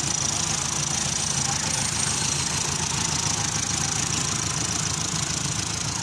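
Kia Sportage engine idling steadily.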